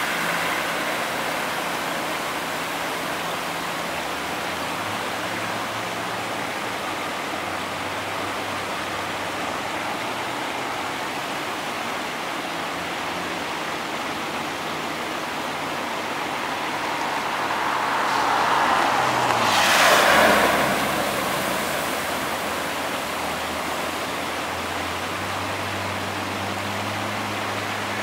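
Cars driving through flood water on a street, their tyres hissing through the standing water over a steady rushing noise. One vehicle passes close about twenty seconds in, its sound swelling to a peak and then falling away.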